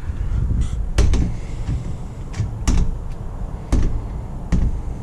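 Latch bolt of a mortise lock knocking against an electric strike as an aluminium door is pushed to, four sharp clicks about a second apart. The latch hits the strike and jams instead of retracting, which is why the door will not lock.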